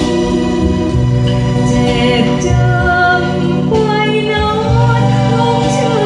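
A woman singing a Thai song into a microphone, accompanied live on an electronic keyboard with a sustained organ-like sound and a stepping bass line.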